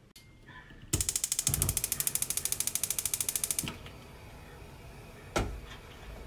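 Gas stove's spark igniter clicking rapidly for about three seconds, followed by a low steady hiss. A single sharp knock comes near the end.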